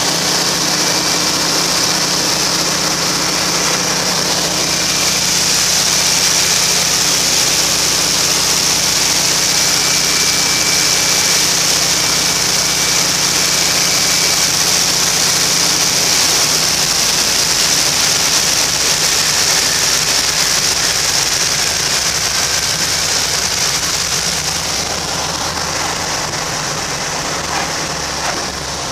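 Cabin noise inside a Noorduyn Norseman on approach: the radial engine drones steadily under loud rushing airflow. The sound eases off over the last few seconds as the plane comes down onto the runway.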